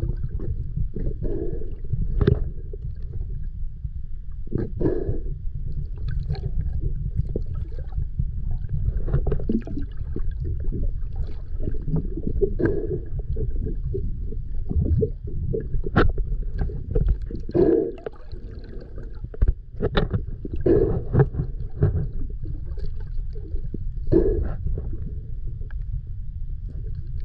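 Underwater recording just below a boat hull: a steady low rumble of moving water with irregular gurgling splashes and sharp knocks every couple of seconds.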